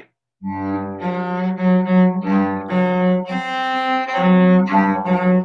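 Cello being bowed: a phrase of changing notes that starts about half a second in, played over a video call.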